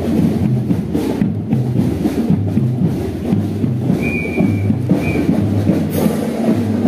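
Parade drum cadence with a steady repeating beat. About four seconds in, a high steady tone sounds briefly, then once more, shorter.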